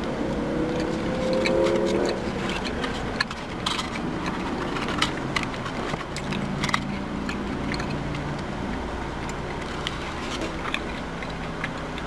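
Steady hum of a vehicle. In the first two seconds a rising tone sounds over it, and small sharp clicks and crackles are scattered through the middle.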